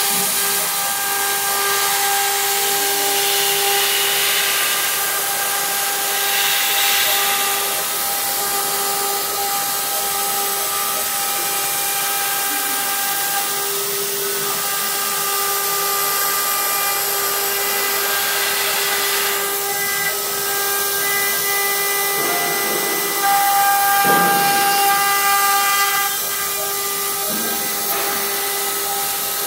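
OMNI CNC router spindle running at high speed, a steady high whine over a hiss, as its small bit cuts through paperboard. The whine dips and changes briefly a few times and swells for a couple of seconds about three quarters through.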